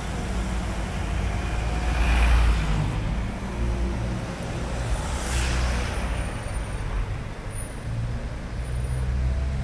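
A BMW i8 pulling away and driving past on a wet street, with other traffic running behind: a low rumble with the hiss of tyres on wet tarmac, loudest about two seconds in, and a second swell of hiss at about five seconds.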